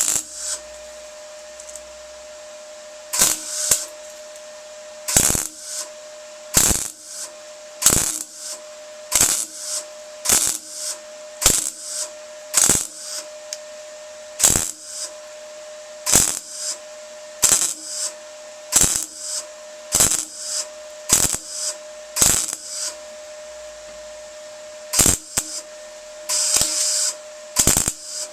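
MIG welder laying short stitch welds on van body steel: about twenty brief bursts of welding crackle, roughly one every second or so, with a slightly longer run near the end, over a steady whine. The stop-start pattern is the stitching used to fill a gap in thin sheet metal without warping it.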